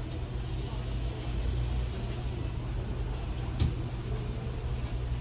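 Steady low background rumble and hum, with one sharp click about three and a half seconds in.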